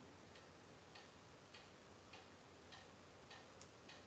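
Near silence with faint, evenly spaced ticks, a little under two a second, like a clock ticking, over the low hiss of an open call line.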